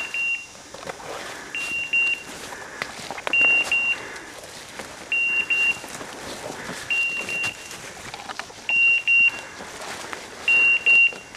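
A hunting dog's beeper collar sounding short groups of two or three high beeps about every two seconds, the pattern a beeper gives when the dog is standing on point. Brush and dry leaves rustle and twigs snap under footsteps pushing through the scrub.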